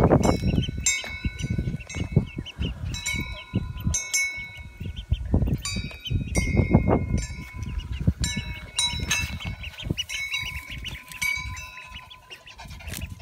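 Ducklings and baby chicks peeping, many short high calls overlapping throughout, over an uneven low rumble on the microphone.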